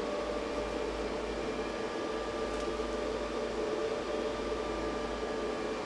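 Steady workshop room tone: an even hiss with a constant hum, like a fan or ventilation unit running, with no distinct events.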